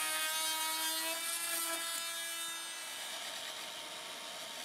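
A power drill runs with a steady whine as it bores into the end of a painted wooden pilaster board, and stops about two and a half seconds in. Then a random orbital sander runs on the edge of a board, a steady, noisier sound.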